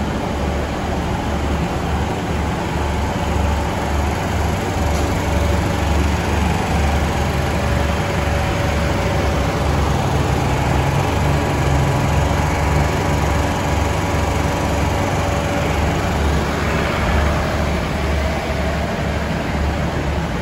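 Steady, continuous idling rumble with a low hum from a standing diesel express train at the platform, its engines or generators running while it waits to depart.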